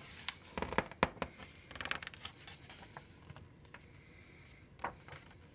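A picture-book page being turned and pressed flat by hand: quiet paper rustles with a few soft clicks and taps, thickest about two seconds in.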